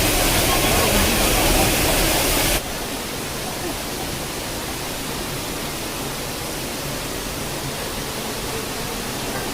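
Steady rush of falling water from a stream waterfall, a loud even roar that drops suddenly to a quieter rush about two and a half seconds in.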